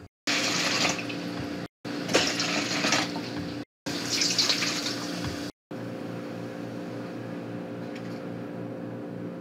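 Warm water poured from a measuring cup into a large stainless steel pot, in three stretches of splashing broken by sudden brief dropouts. After that only a steady low hum remains.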